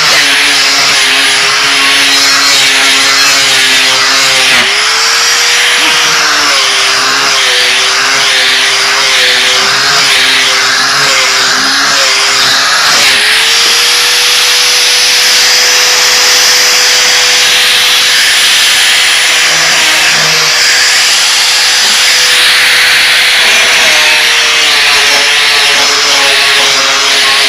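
Chicago Electric grinder fitted with a sanding disc, running continuously and sanding oak boards: a steady motor whine with a loud scraping hiss. The whine drops in pitch while the disc is pressed into the wood and rises back when the load comes off, briefly about five seconds in and for a long stretch in the middle.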